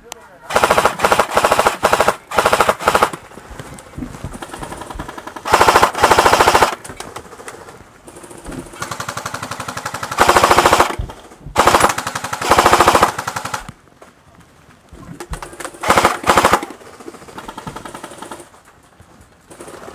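A&K M249 Para airsoft electric gun firing short full-auto bursts, a rapid, even clatter of the motor and gearbox cycling. There are about eight bursts, with fainter rapid fire from other airsoft guns between them.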